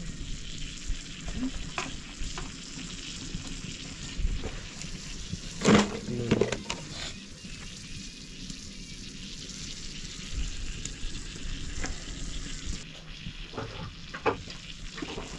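Hot cooking oil sizzling and frying in a wok over a wood fire, with scattered small clicks of a spoon and utensils. A short voice-like sound comes about six seconds in.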